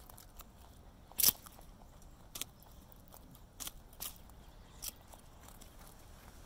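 Rabbits biting and crunching raw carrots: about five short, sharp crunches spread out, the loudest about a second in.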